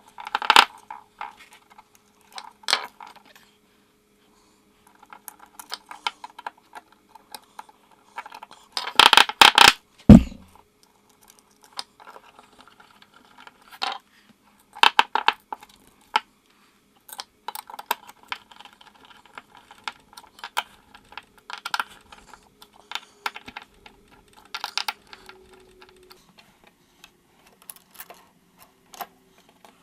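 Clicks and clatter of small plastic and metal parts of a Scotty transducer mount being handled and fitted together. A louder burst of clattering comes about nine seconds in and ends in a dull thud.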